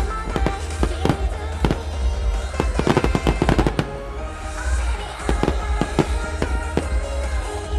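Aerial firework shells bursting in quick, irregular succession, with a dense volley of bangs about three seconds in. A pop song plays under the bangs.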